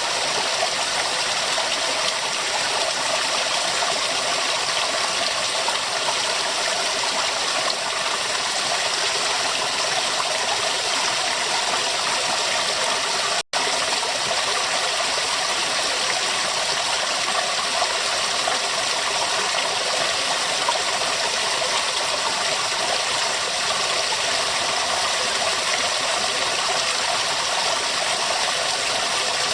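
Running river water flowing steadily, an even rushing and bubbling, with a momentary dropout about halfway through.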